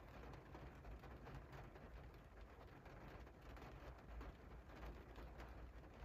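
Faint cold rain falling on a window pane: a soft, even hiss dotted with many small drop ticks, over a steady low rumble.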